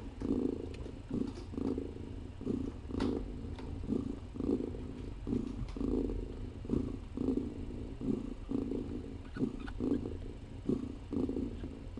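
Nursing mother cat purring steadily, the purr swelling and fading about twice a second with her breathing.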